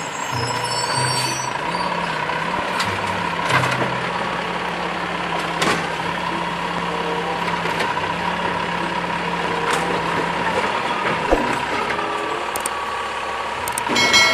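Automated side-loader garbage truck running at the curb with a steady whine while its hydraulic arm grabs a wheeled trash cart and lifts it to tip it into the hopper. Scattered knocks and clunks from the arm and cart, with a louder clatter near the end as the cart is tipped.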